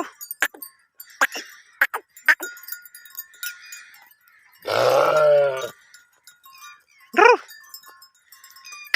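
Sheep bleating: one long, low bleat about halfway through and a shorter, higher bleat near the end. Between the calls there are sharp clicks and faint bell-like ringing.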